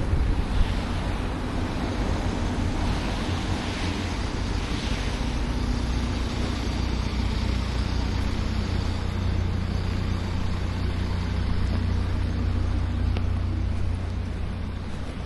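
Street traffic: motor vehicles running past with a steady low engine rumble and tyre noise, swelling a little near the end before easing off.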